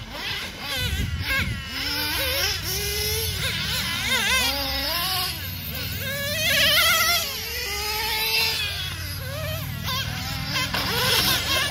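Several nitro RC cars' small glow engines racing, their high-pitched whine rising and falling again and again as they accelerate, lift off for corners and pass by.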